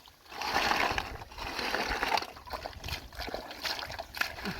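Shallow muddy water being stirred by hand: irregular small splashes, sloshing and trickling as the mud and water are worked through.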